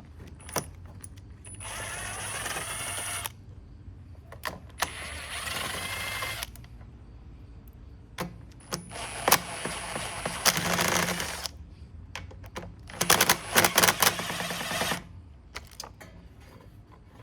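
Socket tool loosening the bolts of a Toro TimeMaster mower's engine shroud, in four spells of rapid mechanical clicking, each one to three seconds long, with a few single knocks of the tool and bolts in between.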